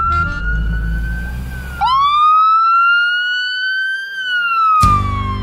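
Ambulance siren sounding a slow wail: one tone sweeping up, holding high, then gliding down. A low engine rumble runs under it for the first couple of seconds, and music with a beat comes in near the end.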